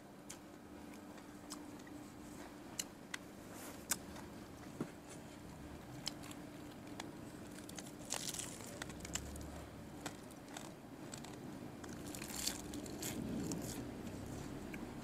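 Close-miked chewing and crunching of a mouthful of crispy pork belly and papaya salad, with scattered sharp crunches. About eight seconds in, and again near the end, there is a brief rustle as more food is picked from the tray by hand.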